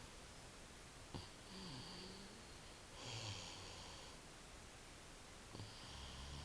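A girl snoring in her sleep: three slow breaths, each a short low snore with a breathy hiss, about two and a half seconds apart.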